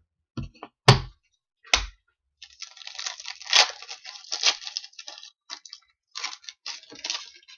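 Trading cards being handled at a table: three soft knocks in the first two seconds, then about five seconds of crisp crackling and rustling as cards are slid and shuffled.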